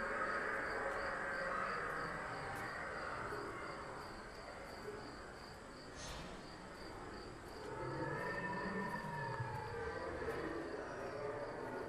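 Night-ambience sound effect of crickets chirping in a steady, even pulse, over a noisy wash with low drifting tones that swell in the second half.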